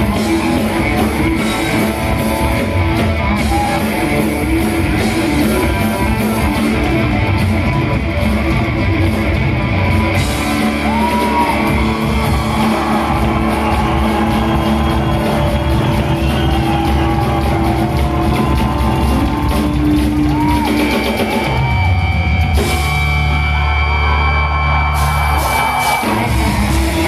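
Live rock band playing loud from a club stage, heard from the audience: drum kit and electric guitar with singing over the top.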